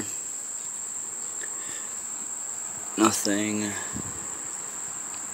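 A steady, high-pitched insect trill, like a cricket's. About three seconds in, a man's voice briefly murmurs.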